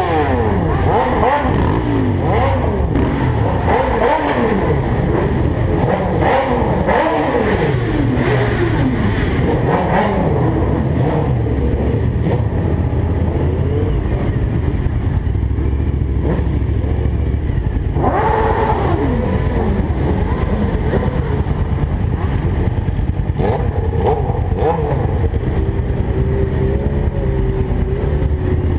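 Several vehicle engines revving again and again, their pitches rising and falling over one another. Near the end one engine holds a steady note.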